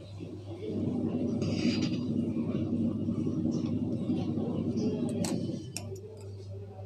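Metal cake-decorating turntable spun by hand while a cream flower is piped on it, its bearing giving a steady rumble for about five seconds. It stops shortly before the end, where there are a couple of sharp clicks.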